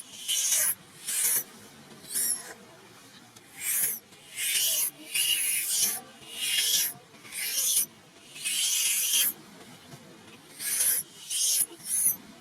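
A baby macaque screaming in harsh, high-pitched bursts, about a dozen in quick succession with short gaps, some as long as a second, as it struggles with its mother over nursing.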